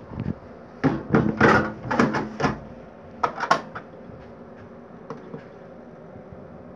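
Plastic tray of a Deskmate flash stamp machine being slid into its slot, a quick run of clatters and knocks in the first few seconds, then a few faint clicks as the front-panel button is pressed.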